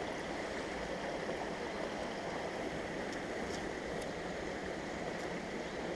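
Small mountain stream flowing and splashing over rocks: a steady rushing of water.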